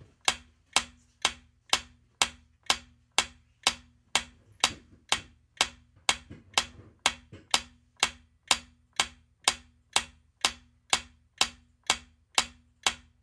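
Quiz countdown timer's clock-tick sound effect: short, sharp ticks about two a second, evenly spaced, ticking the seconds down.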